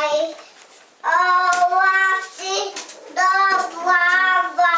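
A toddler singing two drawn-out phrases of held notes, with a few sharp clicks.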